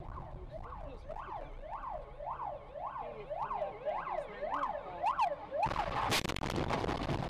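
Emergency vehicle siren yelping, each rise and fall of pitch repeating just under twice a second. About six seconds in it is swamped by a sudden loud crash of a car collision, with noise carrying on afterwards.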